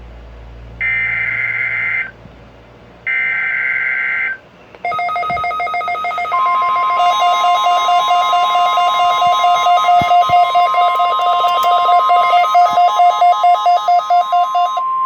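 NOAA Weather Radio alert tones for a weekly test. Two short bursts of screechy SAME digital header tones, then a pulsing, warbling electronic alarm, joined a moment later by the steady 1050 Hz weather-radio warning tone, which holds to the end.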